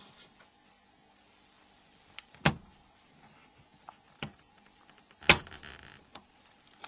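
Several sharp clicks and taps from small plastic parts of a phone's housing being handled and pried apart. The two loudest come about two and a half and five seconds in, the second followed by a short rustle.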